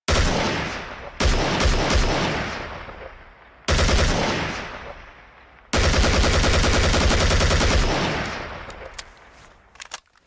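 AK-47 assault rifle firing. A single shot is followed about a second later by a short cluster of shots and another shot near four seconds. A long rapid-fire automatic burst of about two seconds starts near six seconds, and each firing dies away in a long echo. A few sharp clicks come near the end.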